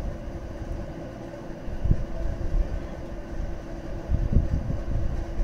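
Steady low rumble with a faint constant hum, broken by a few soft thuds about two seconds and four seconds in as handfuls of banana–coconut filling are dropped into egg batter in a steel saucepan.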